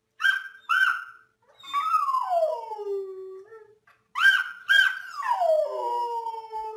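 Golden retriever howling: two short high yelps run into a long howl that falls steadily in pitch, and the pattern repeats about four seconds in.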